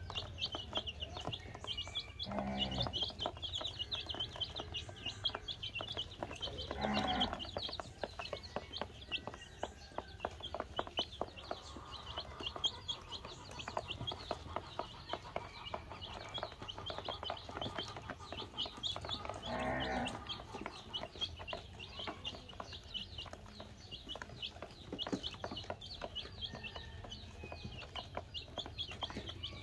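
A brood of baby chicks peeping continuously in short, high chirps while they peck feed from a plastic basin, with many light taps of beaks on the plastic. Three times a lower, longer pitched call cuts in, about two seconds in, about seven seconds in and about twenty seconds in.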